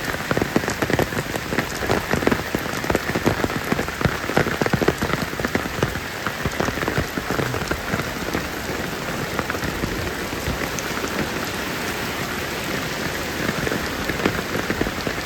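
Heavy rain falling steadily, a dense spatter of drops striking surfaces close to the microphone.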